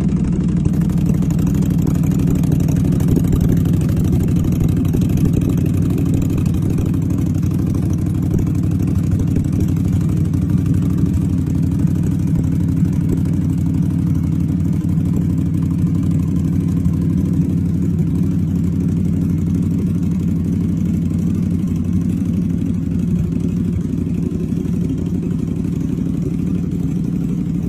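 Motorcycle engine idling steadily through a loud exhaust, its rapid run of pulses sounding like a minigun firing.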